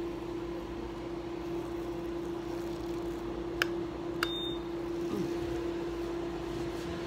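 Candela GentleYAG laser hair removal system running with a steady mid-pitched hum. Partway through come two sharp clicks about half a second apart as the handpiece fires pulses on the chin.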